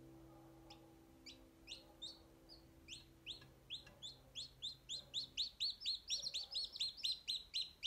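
Newly hatched chicks peeping: short rising chirps, sparse at first, then quicker and louder until there are several a second. Music fades out underneath during the first few seconds.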